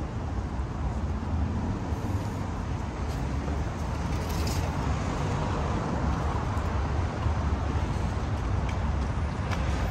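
City street traffic noise: a steady hum of passing cars with a low rumble underneath.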